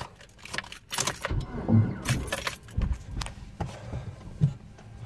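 Car keys jangling and clicking as a key is worked into the ignition, with a few low knocks. This first try does not work.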